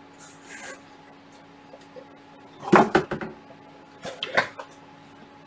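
Handling of packaging: two short bursts of plastic crinkling and knocking, the louder about three seconds in and another just past four seconds, over a faint steady hum.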